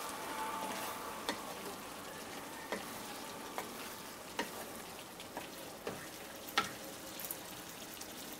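Thick soyabean and potato curry sizzling in a pan during a final stir with a wooden spatula, the spatula knocking and scraping against the pan at irregular moments about once a second.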